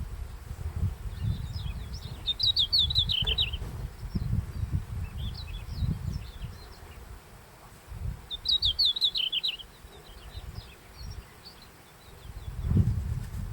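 A red-flanked bluetail sings two short phrases about six seconds apart. Each is a quick run of high, slightly falling notes, heard as "kikkyo, kikkyo, kikyo, kyorori". An uneven low rumble runs underneath.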